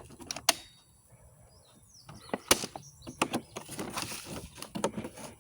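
Scattered sharp clicks and knocks with faint rustling as the packaging of a boxed battery chainsaw is handled and worked open.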